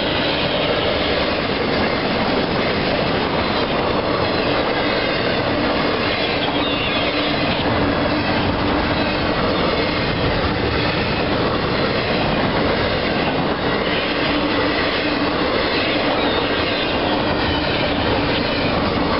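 CSX intermodal freight's double-stack container well cars rolling past: a steady, loud rumble of steel wheels on rail, with a faint steady tone running through it.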